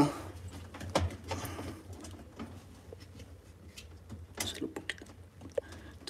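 Faint, scattered plastic clicks and rattles from the lid lock assembly of a GE top-load washer being worked loose by hand from its clips.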